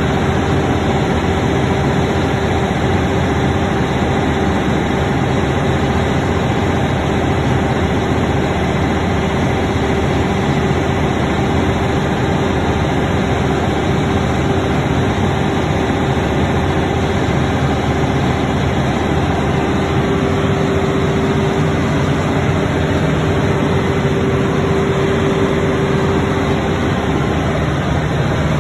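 Cummins QSX15 inline-six diesel driving a 500 kW generator, running steadily at rated speed with no load on it: a constant drone with a steady high whine over it.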